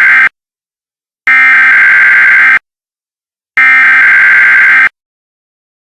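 Emergency Alert System SAME header: loud bursts of buzzy digital data tone, each a little over a second long with about a second of silence between. The end of one burst is followed by two more, the header repeated three times as it encodes a severe thunderstorm warning.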